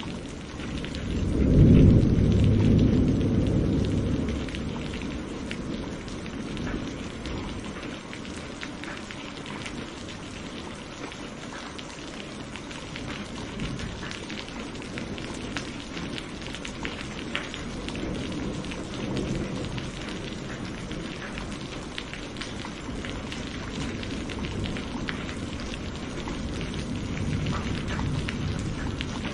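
Steady rain with a roll of thunder starting about a second and a half in, the loudest sound, dying away over a few seconds. Fainter low rumbles of thunder swell again later.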